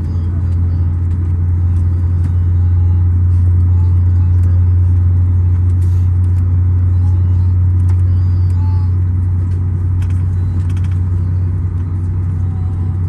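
Steady low drone of an airliner's engines, with a few faint clicks.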